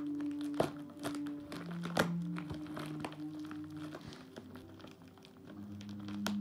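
Background music of slow held notes, over the crinkling of packaging being handled, with sharp clicks about half a second and two seconds in.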